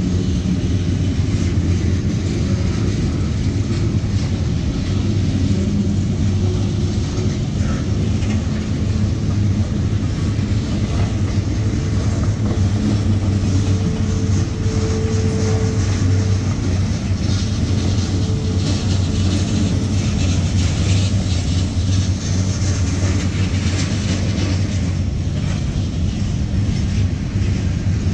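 Freight cars of a CSX manifest train rolling past at close range: a steady low rumble of steel wheels on rail with scattered faint clicks, and a faint brief tone about halfway through.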